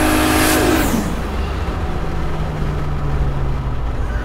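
Built single-turbo Toyota 2JZ-GTE straight-six pulling hard under acceleration. About a second in the throttle closes: the revs fall away sharply with a brief hiss of turbo flutter. The engine then runs on at low revs, slowly dropping.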